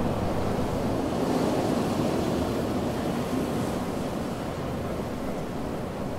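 Ocean waves breaking on a beach: a steady rushing wash that swells about a second in and slowly eases off.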